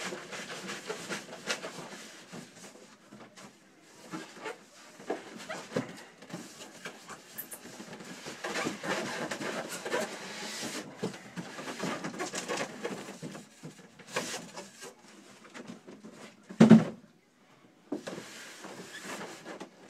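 Cardboard box and foam packing inserts being handled: irregular rubbing, scraping and knocking as the packing is worked out of a subwoofer box, with one loud thump about three-quarters of the way through.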